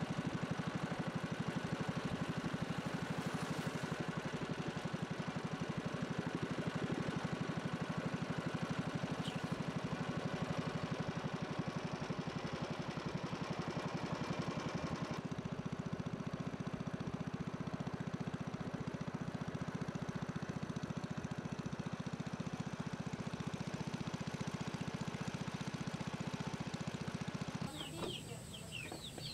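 Small boat engine running steadily with an even, rapid pulse. Near the end the engine cuts off and a few short high bird chirps are heard.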